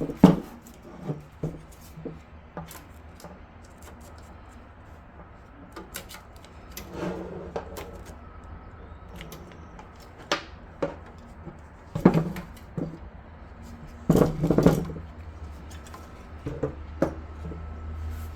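Computer parts being handled and fitted into a PC case: scattered clicks, taps and knocks. The loudest knock is about twelve seconds in, and a cluster of knocks follows around fourteen to fifteen seconds.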